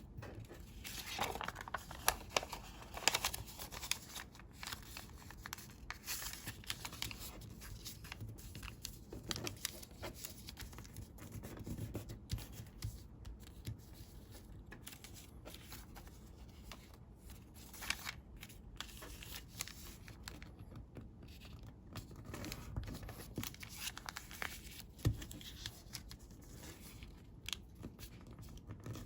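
Colored origami paper being handled, folded and creased by hand: irregular rustles, crinkles and short sharp swipes.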